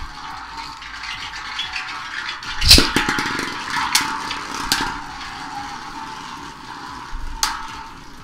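Beyblade Burst spinning tops whirring and scraping on a plastic sled used as a stadium. About a third of the way in, a second top is launched and lands with a loud clack, and the two tops then clash with sharp clicks a few times.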